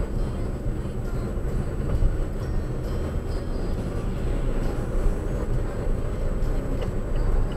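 Car interior driving noise picked up by a dashcam's built-in microphone: a steady low rumble of road and engine noise at cruising speed, with a faint steady high whine.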